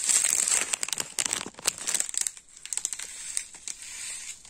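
Plastic packets of diamond-painting crystals crinkling as they are handled, densest in the first two seconds, then thinning to scattered crackles.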